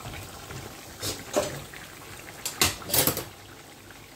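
Vegetables bubbling in oil in pans on a stove, with a few loud clattering knocks of cookware or utensils being handled, once about a second in and again a little before three seconds.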